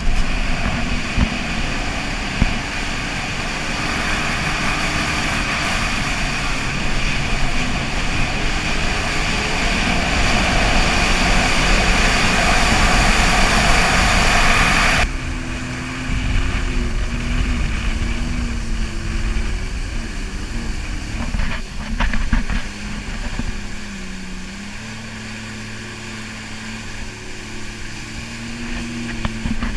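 Jet ski running at speed, its engine drone mixed with rushing water spray and wind. About halfway through the sound cuts abruptly to a quieter, steadier engine drone whose pitch wavers up and down.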